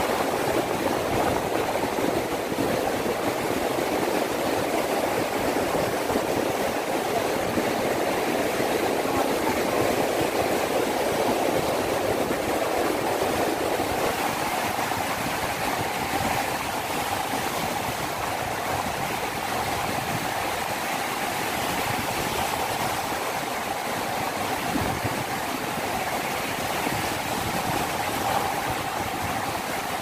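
Sea waves rolling in and breaking in choppy surf, a steady continuous wash of water.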